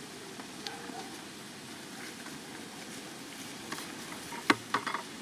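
Steady outdoor hiss, with a few sharp clicks and knocks near the end, the loudest about four and a half seconds in.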